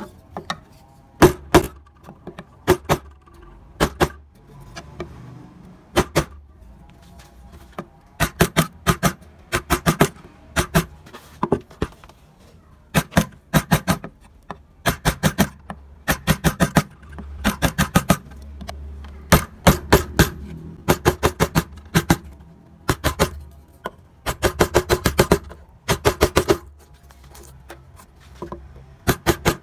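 Flat wood-carving chisel cutting into a carved wooden leaf ornament, making quick runs of sharp taps and clicks, several strikes at a time, with short pauses between the runs.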